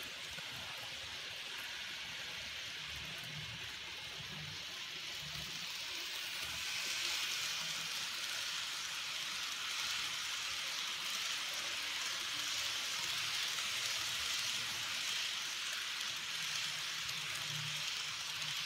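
N-scale model passenger train rolling on track: a steady hiss of metal wheels on rail and the small motor's whir, growing louder about seven seconds in as the lighted cars pass close by.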